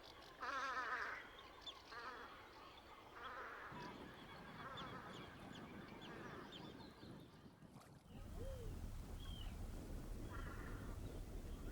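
Ducks giving short, wavering, nasal calls several times, with faint high chirps between them. A steady low rumble comes in suddenly about eight seconds in.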